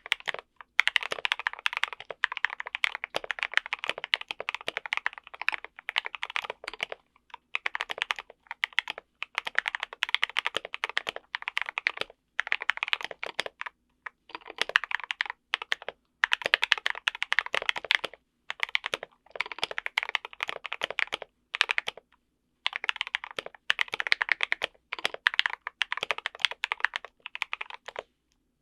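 Typing on a mechanical keyboard with lubed and filmed Gateron Yellow Milky linear switches, a brass plate and foam under and over the PCB, giving a deep, muted "thocky" key sound. Fast runs of keystrokes come in bursts of a second or two, with short pauses between them.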